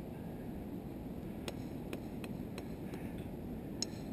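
A hammer striking diabase boulders, about six sharp clinks at uneven intervals starting about a second and a half in; the last one rings briefly. A steady low background noise runs under them.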